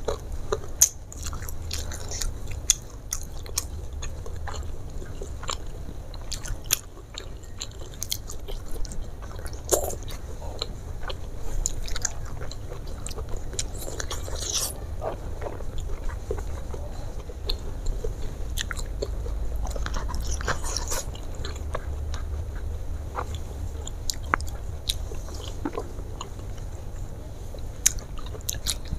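Close-miked chewing with many scattered crisp crunches, as crispy fried chicken and raw vegetables are bitten and chewed, over a steady low hum.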